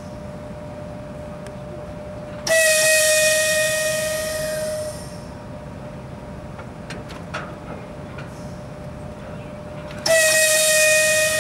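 Compressed air blown out of train brake hoses at the coupling between an electric locomotive and a coach: two loud whistling hisses, each about two and a half seconds long and fading as it goes, the second about seven seconds after the first. A few faint clicks fall between them.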